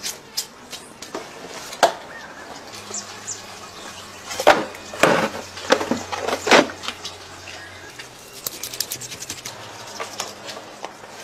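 Handling sounds of a crocodile being skinned: scattered knocks and clicks, with a cluster of louder scraping, rustling bursts about halfway through as the wet hide goes into a plastic bucket.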